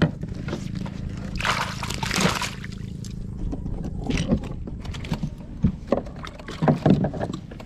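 A wire-mesh fish keeper basket with foam floats is dropped into lake water beside a boat, splashing about a second and a half in. Scattered knocks and scrapes follow as it is handled against the hull and pulled back up.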